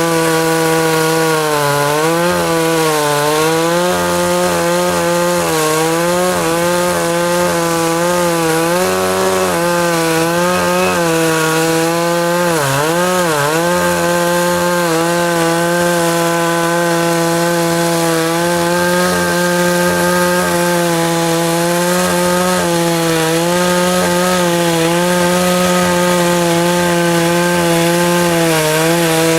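52cc two-stroke chainsaw with a 20-inch bar running at high revs and cutting through willow logs. Its pitch dips each time the chain bites into the wood and loads the engine, most deeply about twelve to thirteen seconds in.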